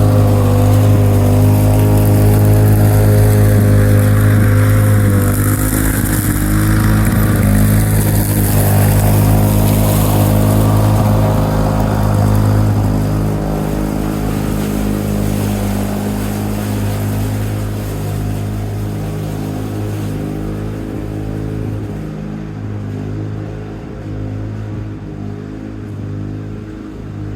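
1987 Lawn-Boy 8073B walk-behind mower engine running steadily, then more unevenly and gradually quieter over the second half.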